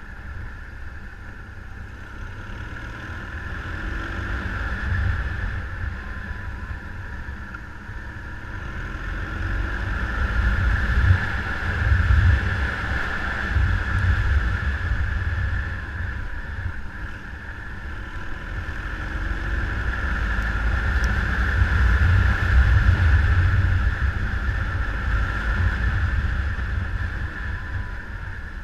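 Wind rumbling on the microphone of a moving rider, swelling and easing twice, over a steady hiss of engine and road noise.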